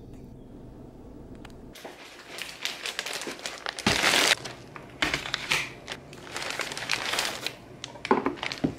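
Grocery bags rustling and crinkling as groceries are lifted out and set down on a kitchen counter, in irregular bursts that are loudest about four seconds in. For the first couple of seconds before that, only a steady low hum, as inside a moving car.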